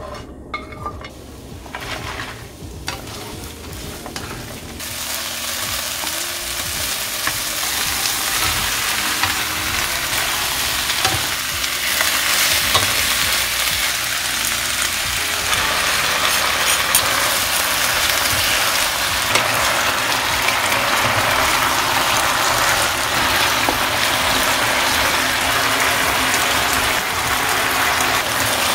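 Vegetables frying in hot oil in a nonstick frying pan: chopped green onion, then eggplant and shishito peppers. The sizzle swells over the first few seconds into a steady frying hiss, with the light scrape and click of wooden spatulas stirring.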